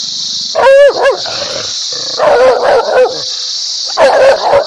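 A dog barking in three short bursts, roughly a second and a half apart, the first a wavering, higher yelp. A steady high-pitched hiss runs underneath.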